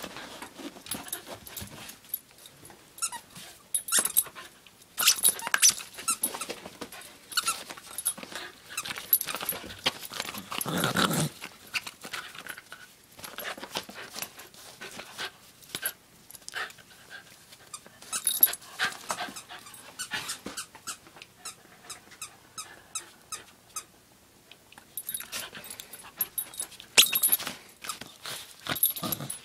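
A small terrier playing tug-of-war with a plush toy: irregular bursts of play noises and scuffling, loudest about ten to eleven seconds in.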